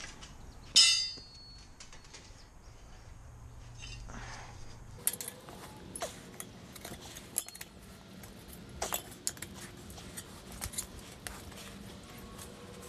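Metal tire-changing tools clinking against the wheel and floor. About a second in, one loud ringing clang of metal, then a scattered run of light clicks and clinks.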